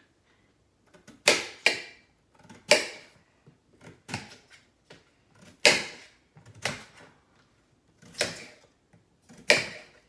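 A kitchen knife cutting peeled potatoes directly on a metal roasting pan, each cut ending in a sharp knock of the blade against the pan. There are about eight knocks, roughly one every second or so.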